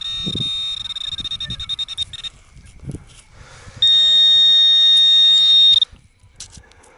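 Metal detector sounding a high, steady electronic tone over a buried target, pulsing at first, with a couple of low thuds. About a second after the first tone stops, a louder unbroken tone sounds for about two seconds and cuts off sharply.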